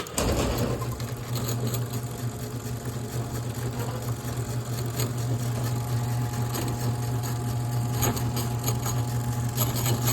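LiftMaster MJ 5011U commercial garage door opener starting suddenly and running steadily with a low motor hum and scattered clicks, driving the door upward to test the freshly adjusted up-limit.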